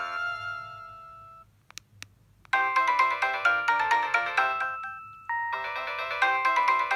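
Preloaded polyphonic ringtones on a Samsung SGH-D600 mobile phone: one tune fades out, two short clicks come about two seconds in, and half a second later a new busy electronic melody starts, with a brief break a little after five seconds.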